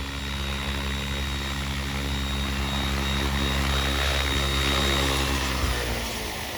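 Oxy 5 HF electric RC helicopter flying: a steady buzz from the main rotor and electric motor, with a thin high whine on top. About six seconds in the buzz stops and the sound drops away.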